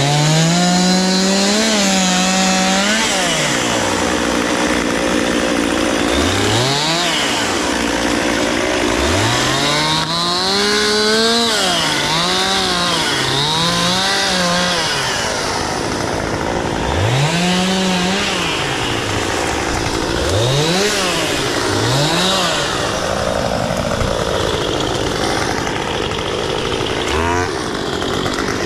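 Two-stroke chainsaw cutting wood, revved up to full speed and let back down toward idle again and again, about a dozen times.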